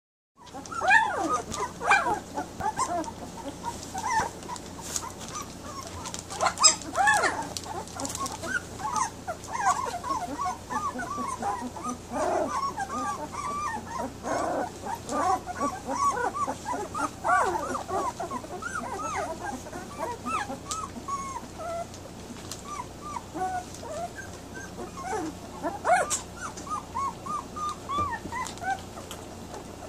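A litter of very young puppies whining and squeaking together in a continuous chorus of short, high cries, with a few louder squeals now and then. They have just woken and are crying for their mother to nurse.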